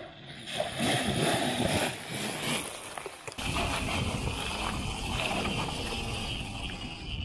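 An electric dirt bike riding through swamp water and mud, with splashing and churning water; the sound changes abruptly to a denser, steadier rush about three and a half seconds in.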